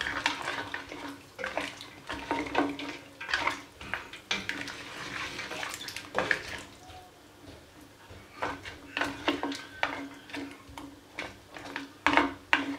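Water poured into a pot of boiling oxtail and broth, then a spoon stirring and knocking against the pot, in irregular clatters.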